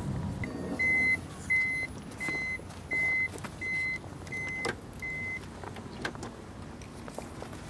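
An electronic beeper sounding about eight short, evenly spaced high beeps, roughly one and a half a second, then stopping.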